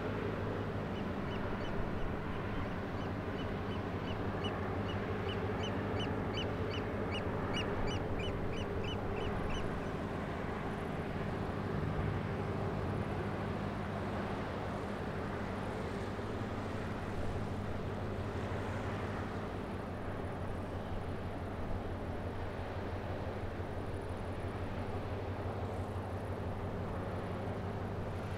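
Low, steady drone of a large container ship's engine passing by. From about a second in until about nine seconds in, a bird gives a quick run of short repeated calls, about three a second.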